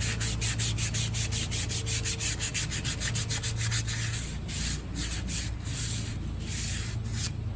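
Sandpaper rubbed by hand over a metal wheel rim's bead seat in quick back-and-forth strokes, about six a second, changing to slower, longer strokes a little past halfway. The sanding clears rust and dirt from where the tire bead seals, to stop a leak around the rim.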